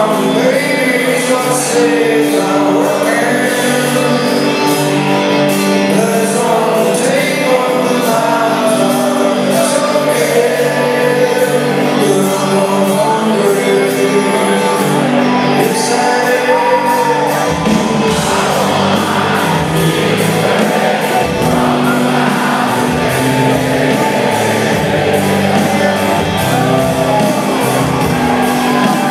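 Live rock band playing: a male lead vocal sung over electric guitars, with a bass guitar coming in about two-thirds of the way through.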